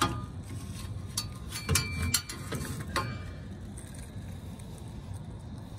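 A handful of sharp mechanical clicks and knocks in the first three seconds, several close together about two seconds in, then only a steady low background.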